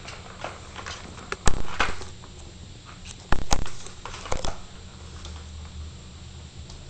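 A cat batting at a Catit Senses plastic ball-track toy: sharp plastic knocks and rattles as the paws hit the track and ball, loudest about one and a half and three and a half seconds in.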